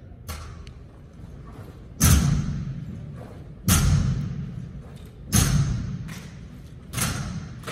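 A drill team striking the floor in unison: four heavy thuds about a second and a half apart, each echoing through a large hall. A few light ticks come before the first.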